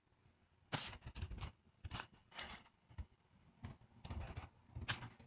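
Irregular computer mouse and keyboard clicks, about eight in all, with some short rustling between them; the loudest click comes near the end.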